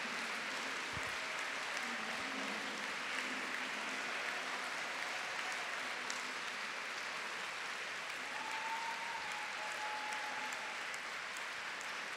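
A large audience applauding, with steady, even clapping throughout. A short, high held tone, like a whistle or a held cheer, rises above the clapping about eight seconds in.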